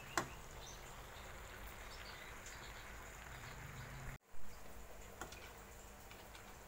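Fish in tauco sauce sizzling steadily in a wok, with a metal spatula knocking against the pan a few times, the loudest knock about four and a half seconds in.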